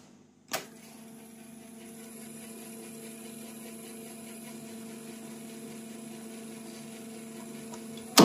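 A sharp click as a cassette transport key is pressed, then the cassette deck's motor and reels whirring steadily as the tape fast-forwards. A second click comes near the end, as the music resumes.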